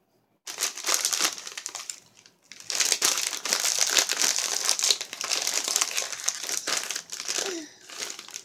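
A small bag of corn chips crinkling loudly as it is handled and opened, in two stretches: a short one starting about half a second in, then a longer one from about two and a half seconds in that tapers off near the end.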